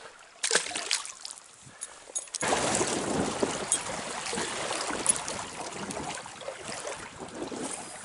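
Small stream water splashing and trickling: a few sharp splashes early, then a steady rush of running water that comes in suddenly a couple of seconds in, dotted with small splashes.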